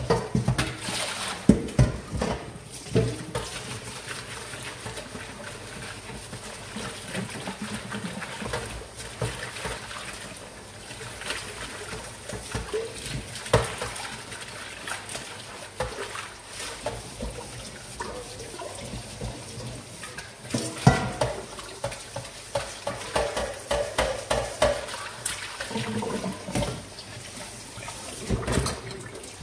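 Stainless steel bowls and pots being washed by hand in a sink under a running tap: water pouring and splashing, with frequent sharp metal clanks and knocks as the pans are handled, the loudest about a second and a half in and again about twenty seconds in.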